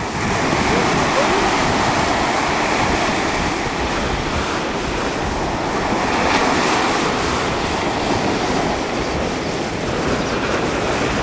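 Ocean surf breaking and washing up the beach in a continuous rush. It swells as a wave breaks about six seconds in.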